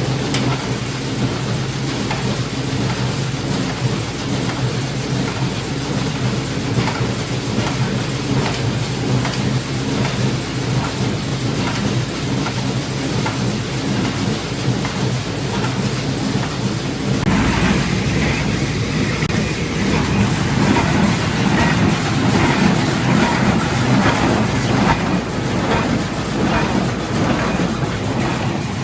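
International 445 square baler running off a tractor, with hay going through it over a steady engine drone and a rough, clattering mechanical noise. About seventeen seconds in, the sound gets louder and harsher.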